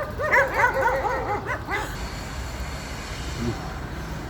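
A dog yipping in a rapid run of short, high, arching yelps that stop about two seconds in, with one faint yelp later. A steady low rumble runs underneath.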